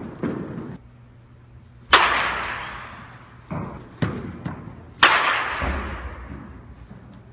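A bat hitting a ball twice, about three seconds apart. Each hit is a sharp crack that echoes for a second or two and is followed by duller thumps as the ball strikes the net and the floor.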